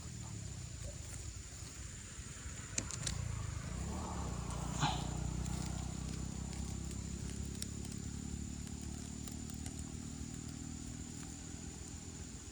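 A motor running steadily with a low hum that swells a little around the middle, with a couple of short clicks and a brief sharp sound along the way.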